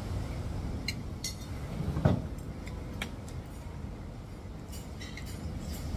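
Metal spoon and fork clinking against a plate and bowl while eating: a few separate sharp clinks, the loudest about two seconds in. A steady low background rumble runs underneath.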